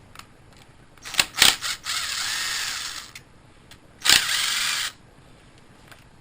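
A power tool runs in two short bursts of about a second each, after a few clicks of metal tools, as parts come off a small engine during teardown.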